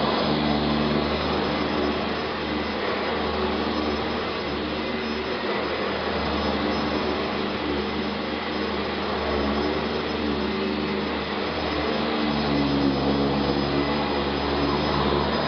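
Eureka The Boss upright vacuum cleaner running continuously, a steady motor hum and rush of air, its pitch shifting slightly as the load changes about three quarters of the way through.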